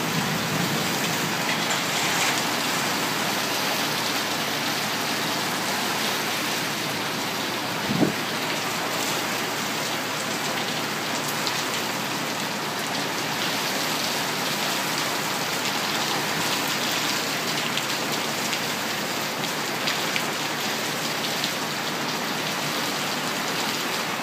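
Heavy rain pouring steadily in a severe thunderstorm, driven by strong wind, with one brief thump about eight seconds in.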